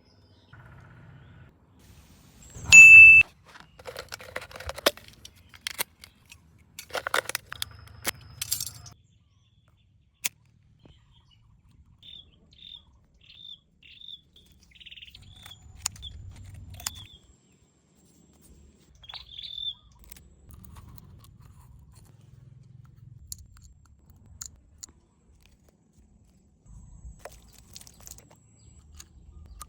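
A loud ringing ding about three seconds in, scattered sharp clicks and knocks, and a bird chirping a run of short, evenly repeated calls midway.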